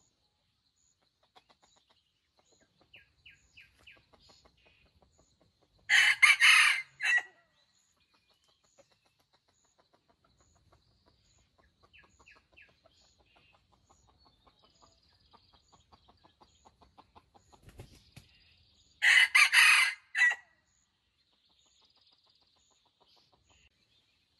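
A red junglefowl rooster crowing twice, about thirteen seconds apart, each a short crow ending in a clipped final note. Faint soft clucking notes come in between.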